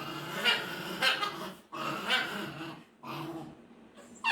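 Pomeranians vocalizing while play-fighting: wavering, pitched growls and whines in three stretches, the last one short.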